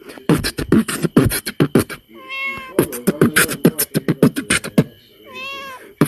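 A person beatboxing rapid mouth-percussion patterns, broken twice by a cat's meow: once about two seconds in and once near the end, as if answering the beat.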